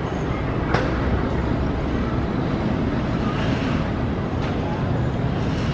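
Jet airliner's engines at takeoff thrust during the takeoff roll: a steady low rumble, with one short click under a second in.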